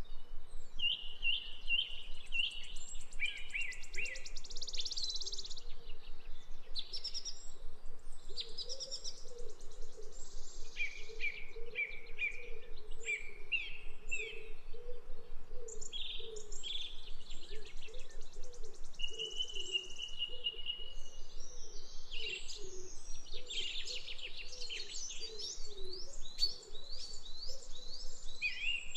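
Birds chirping: many short, high chirps and trills in quick runs throughout, with a lower wavering sound repeating underneath for most of the time.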